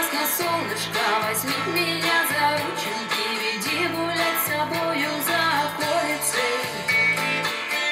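A pop song with singing played through an Aiwa NSX-999 mini hi-fi system's speakers, heard in the room.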